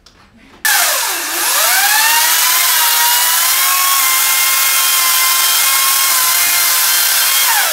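Ryobi electric chainsaw switched on at full speed about half a second in. Its pitch sags sharply as the chain bites through a small potted tree's trunk, then recovers to a steady high whine until it winds down at the end.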